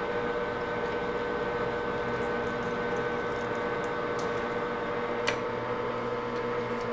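Grizzly G4003 gearhead lathe running steadily during a thread-cutting pass, its geared headstock giving a steady hum made of several tones. A single sharp click sounds about five seconds in.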